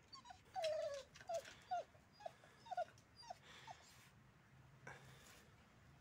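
A dog whining: a string of about eight short whimpers, each falling in pitch. The first is longer and louder, and the rest come about two a second, dying out after about four seconds. A single faint click follows near the end.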